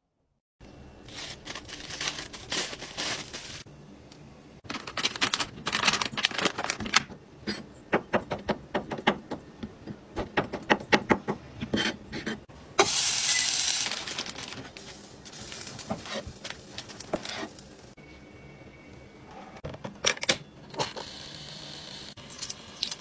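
Kitchen food-prep handling: rustling, then quick clicks of a knife cutting cocktail sausages on a plastic cutting board. A brief loud hiss comes about halfway through, and near the end there are clicks as the hot sandwich maker's timer dial is turned.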